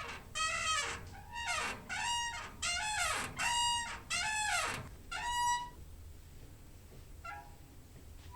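Door hinge squeaking: about six creaks in the first six seconds, each a bending, horn-like tone lasting about half a second, then a short faint creak near the end.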